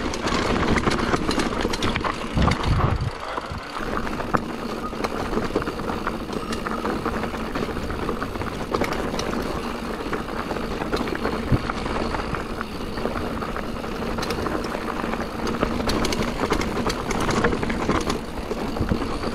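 Mountain bike riding fast down a rough enduro trail: tyres running over dirt and stones with a steady low rumble, and the chain and frame rattling in many short clicks over the bumps.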